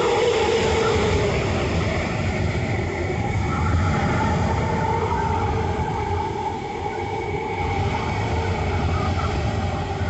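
Hurricane-force wind blowing steadily, a dense rushing noise with a faint wavering howl running through it.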